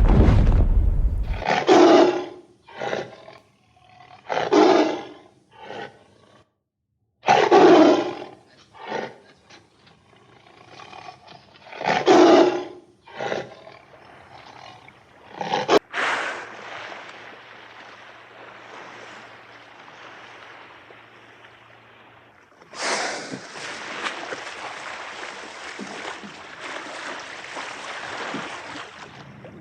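A large animal giving a series of loud, deep calls, each about a second long, every second or two. About sixteen seconds in the calls stop, and a steady hiss takes over, louder in the last few seconds.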